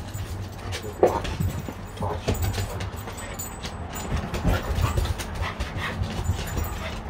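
Dogs panting and moving about on a wooden deck, with a short, sharp sound about a second in.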